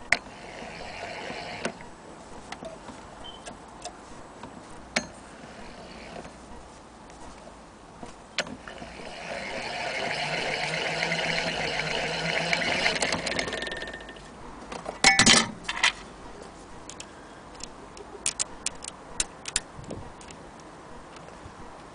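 Singer 28K hand-crank vibrating-shuttle sewing machine being cranked. Its mechanism gives a short whir at the start and a louder steady whir for about five seconds in the middle. A quick cluster of loud metal clicks follows, then scattered light clicks near the end as parts at the needle are handled.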